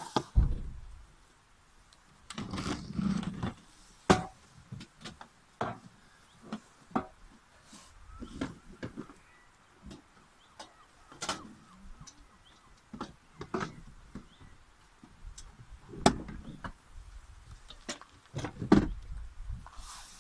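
Irregular knocks, clicks and rustling of items being shifted around the back of a minivan, with a black plastic carry case for a portable gas stove being lifted and handled. The sounds are short and separate, with quiet gaps between them.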